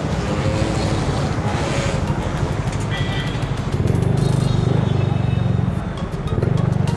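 Yamaha Mio scooter's small single-cylinder engine running at low speed, its pulsing note swelling and easing a few times.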